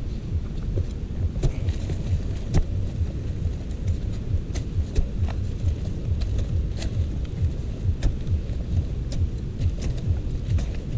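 Steady low rumble of wind buffeting the microphone, with irregular sharp clicks and knocks scattered through.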